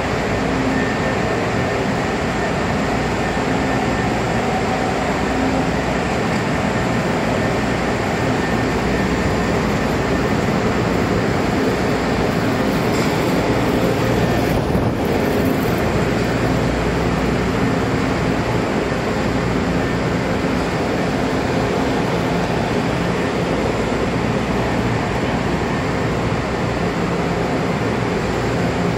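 Steady hum and hiss of Chicago "L" rapid transit cars standing at an underground subway platform, their air-conditioning and equipment running, with a faint steady whine over it. A short, higher hiss comes about halfway through.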